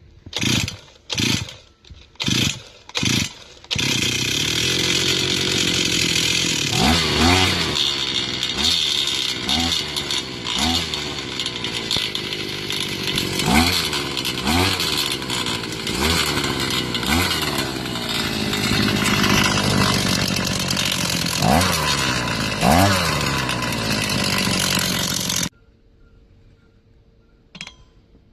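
Engine with a knock: four short bursts, then it runs continuously and is revved in repeated blips, the pitch rising and falling each time, before it cuts off suddenly near the end.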